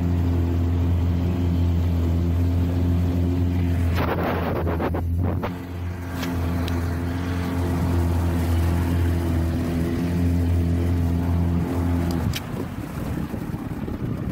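Small boat's motor running steadily at low speed, a constant hum, with a brief rush of noise about four seconds in. The hum drops away about twelve seconds in.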